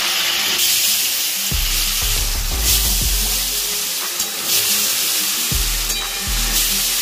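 Hot oil sizzling steadily in aluminium kadais as potatoes fry in one and small puti fish cook in gravy in the other, with a spatula stirring the fish. The sizzle swells in short louder patches.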